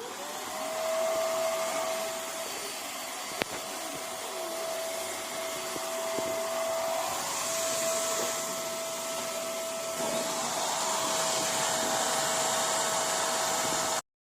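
Vax Mach Air upright vacuum cleaner's motor spinning up with a rising whine, then running with a steady whine over the hiss of suction. A single sharp click comes about three and a half seconds in, and the sound cuts off suddenly near the end.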